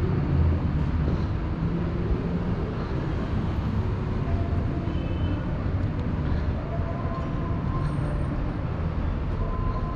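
Steady city street ambience: a continuous low rumble of traffic, with a few faint short tones over it.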